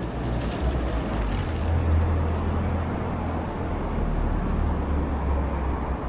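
Motor vehicle engine running close by with a steady low rumble, loudest about two seconds in and easing near the end, over the general noise of street traffic.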